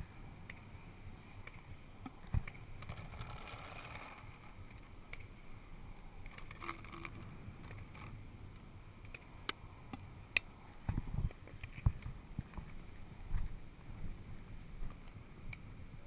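Scattered sharp pops and clicks of paintball markers firing at a distance, over a low rumble of handling and movement noise on the microphone; a few louder pops and low thumps come near the middle.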